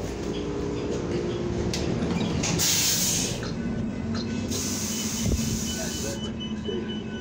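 Two loud blasts of compressed-air hiss from a New Flyer XN40 city bus's pneumatics, a short one about two and a half seconds in and a longer one from about four and a half seconds, over the bus's running hum. Near the end a high electronic tone repeats in quick pulses.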